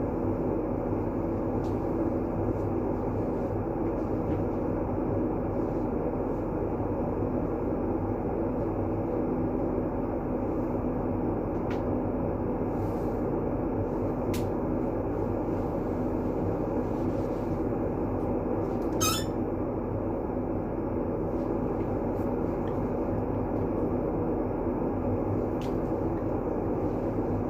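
Steady rushing noise played for sleep, full in the low and middle range and dull at the top, with a faint hum under it. A few faint ticks sound through it, and a brief high squeak about nineteen seconds in.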